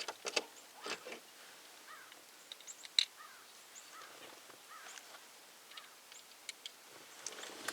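Faint scattered clicks and taps from handling a topper window latch and its small parts, the sharpest click about three seconds in, with a few faint short bird chirps.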